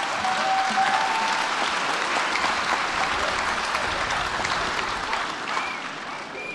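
Crowd applauding, a dense even clapping that fades out near the end.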